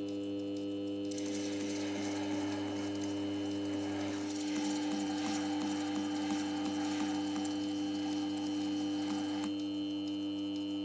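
A small machine humming steadily on several fixed tones. From about a second in until near the end a hiss is added on top, with faint ticks in it, as when the tool bears on a part.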